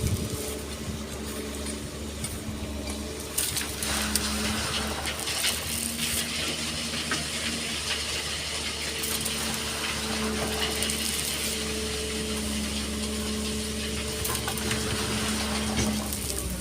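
Excavator's diesel engine running steadily, its pitch shifting slightly now and then, with scattered metallic clicks and rattles.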